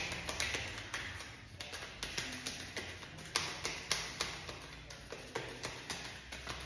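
Deck of tarot or oracle cards being shuffled and tapped by hand: a run of irregular sharp card snaps and swishes, about two to three a second.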